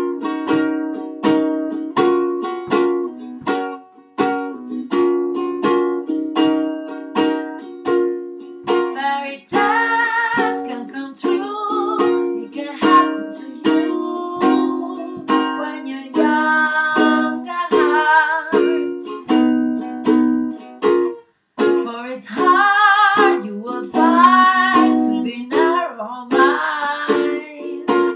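Ukulele strummed in a steady rhythm of chords. A woman's singing voice comes in about ten seconds in and carries on over the strumming.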